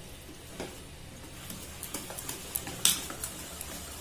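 Wire whisk stirring a wet semolina-and-curd batter in a stainless steel bowl: soft, irregular clicks and taps of the wires against the bowl, with one sharper clink about three seconds in.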